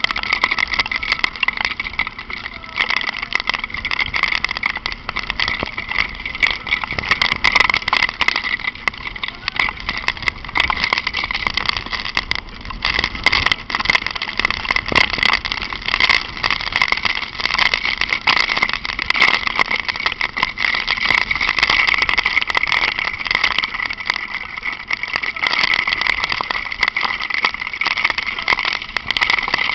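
Honda NX4 Falcon motorcycle being ridden in light rain: a steady rushing noise with a constant high hum and a dense patter of small clicks.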